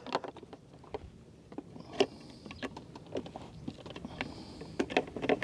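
Scattered light clicks and knocks of equipment being handled, with a sharper knock about two seconds in and a small cluster near the end.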